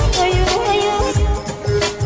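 Background music: a melody with a steady beat.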